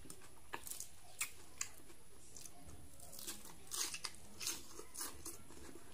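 A person eating with his fingers, chewing close to the microphone: soft, scattered mouth clicks and lip smacks.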